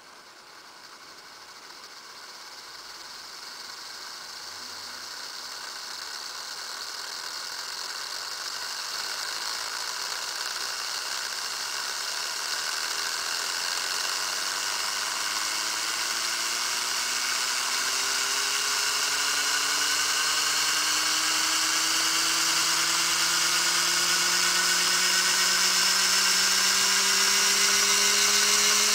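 Small Tesla turbine (bladeless disc turbine) kit spinning up: a whine of several tones rising steadily in pitch and growing louder, over a hiss, as the rotor accelerates toward tens of thousands of rpm.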